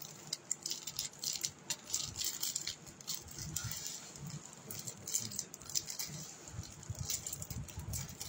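Plastic packaging crinkling and rustling as a bagged item is handled and pulled open, with many small irregular clicks and rattles.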